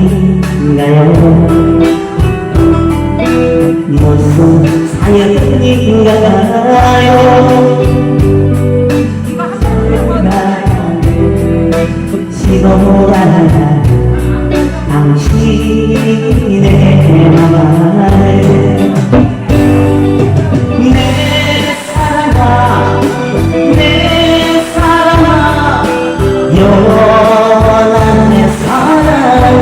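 Live band music with a singer: a Korean 7080-era pop song played on band instruments with a vocal over a strong bass line.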